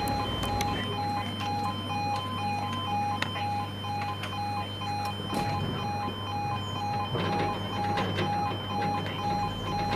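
Level crossing warning alarm at an automatic half-barrier crossing, sounding as a steady two-tone pulse of about two beeps a second, which warns that a train is approaching. A low steady hum lies under it.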